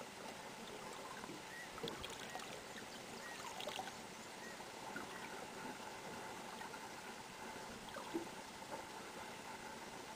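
Faint water lapping and trickling against the hull of a small boat, with a couple of light knocks.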